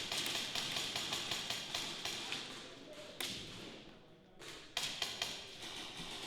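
Airsoft guns firing in quick succession, about six shots a second, tailing off after a couple of seconds. A few single sharp shots or BB hits follow around 3 and 5 seconds in.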